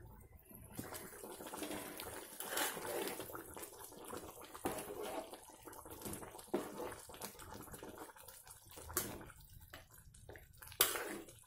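Thin fish curry being stirred with a long metal spoon in an aluminium pot: a wet, uneven liquid sound with a few sharp clicks of the spoon against the pot, the loudest near the end.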